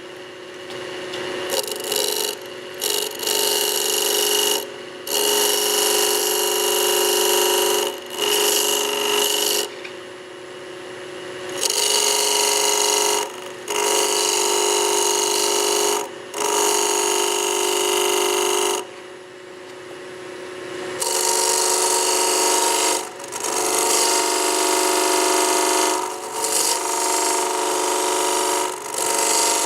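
Wood lathe with a turning chisel cutting into a spinning wooden spindle, a rough, rasping cut in repeated passes of a few seconds each, with short breaks where the tool lifts off, over the steady hum of the lathe. The middle sections are being taken down towards the marked lines.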